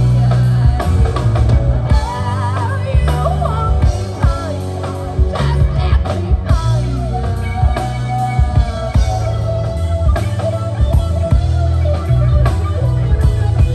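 Rock music with a drum kit, bass, guitar and singing, playing at a steady beat.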